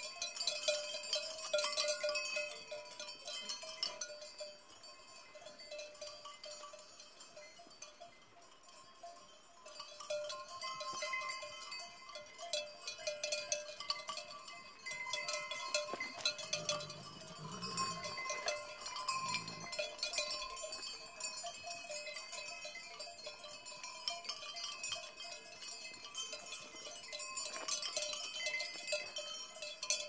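Sheep bells clinking and ringing continuously as a flock moves, fading lower for a few seconds early on and then picking up again. A sheep bleats a couple of times a little past the middle.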